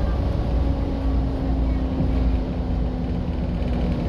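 Volvo B7TL bus's six-cylinder diesel engine running at a steady speed, a low rumble with a steady drone.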